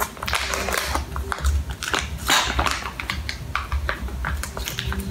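Small printed plastic pouch crinkling and being torn open across the top: a run of irregular crackles and rustles.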